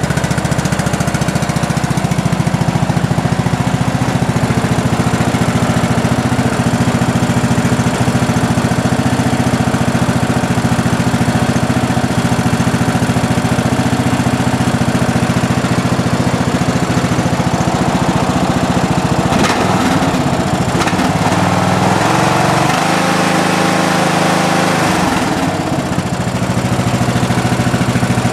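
A 15-horsepower lawn tractor engine running steadily just after a cold start on full choke. About twenty seconds in, its sound changes for roughly six seconds, then settles back to the same steady running.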